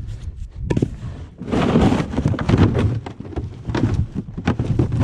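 Firewood logs knocking against each other and against a plastic sled as the load is tipped out onto a pile. A few single knocks come first, then a longer tumbling clatter starts about one and a half seconds in.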